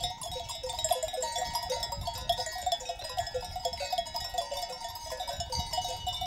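Many sheep bells on a flock clanking in a continuous, irregular jangle.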